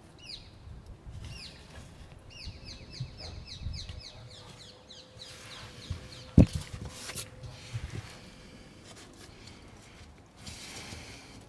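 A songbird singing: a quick series of short, falling chirps repeated over the first five seconds or so. About six seconds in, a single sharp knock, the loudest sound, followed by a few lighter clicks.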